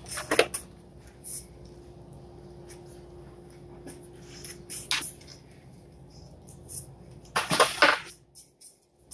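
Light knocks and clicks from an unpainted aero rear lip being handled and shifted on patio tiles, with a longer rustling scrape a little before the end. A faint steady hum runs underneath.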